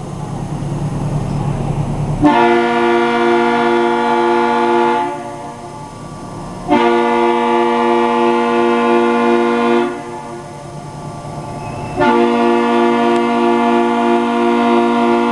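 Foghorn sounding three long blasts of about three seconds each, a deep chord of several tones with a slight warble. A low rumble fills the gaps between the blasts.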